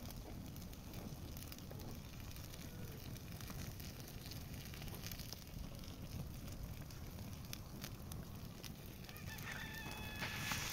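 Wood fire crackling under a tin of melting tar, with scattered sharp crackles over a low rumble. Near the end a domestic fowl gives one short call on an even pitch.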